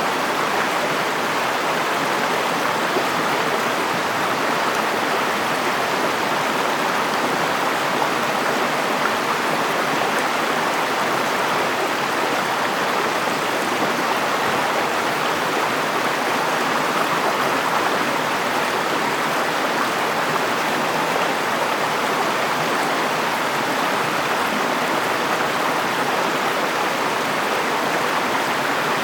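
River water flowing over stones, a steady rushing with no change.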